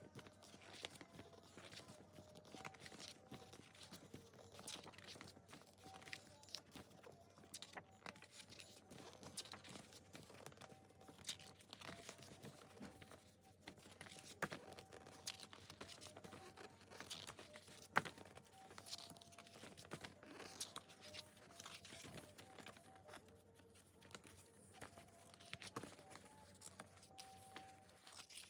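Quiet handling of album packaging: paper and plastic rustling and crinkling, with many light taps and clicks and one sharper click about two-thirds of the way through.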